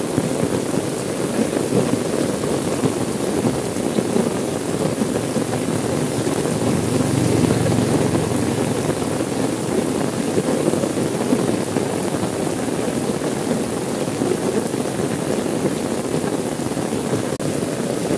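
Steady rain falling on a car's windows and body, heard from inside the car as an even, unbroken patter.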